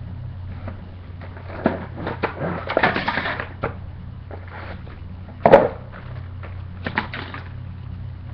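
Toy box and its packaging being opened and handled: scattered clicks and rustling, with one sharp knock about five and a half seconds in, over a steady low hum.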